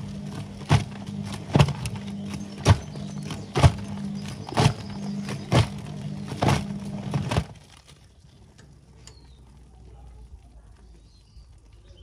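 Whirlpool front-loading washing machine tumbling a soapy wash load with its door open: a steady motor hum with a sharp slap about once a second as the wet laundry and water drop in the drum. The drum stops about seven seconds in, leaving it much quieter.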